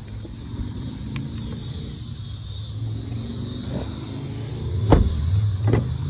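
A steady low vehicle rumble with a high cicada buzz above it. About five seconds in, a car door shuts with a thump, and a sharp click follows just under a second later.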